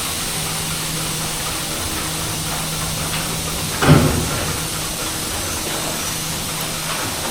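Steady machine hum with a hiss, broken by a single knock about four seconds in.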